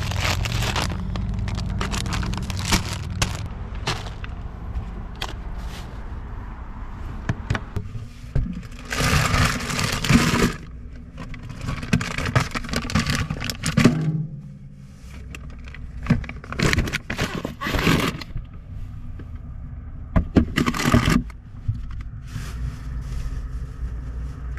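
Groceries being handled and packed into a car's portable fridge: plastic grocery bags rustling, with many knocks, thunks and scrapes of packages being set down and moved.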